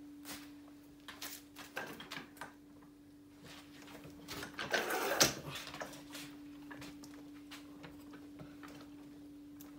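A person moving about a cluttered workroom: scattered knocks and footsteps, then a louder rustling clatter about five seconds in as he sits at the bench and reaches across it, over a steady low hum.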